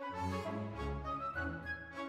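Instrumental background music: a melody moving note to note over a low bass line.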